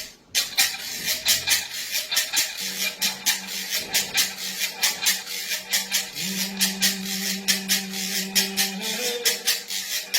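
A shaker or maraca-like rattle shaken in a steady rhythm, about four strokes a second. A held low note comes in a few seconds in and steps up in pitch near the end.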